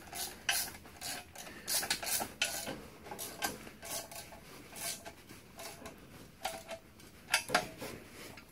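Ratchet wrench on a long extension tightening exhaust manifold nuts: repeated ratchet clicks and metallic clinks in uneven bursts, with a couple of louder clinks near the end.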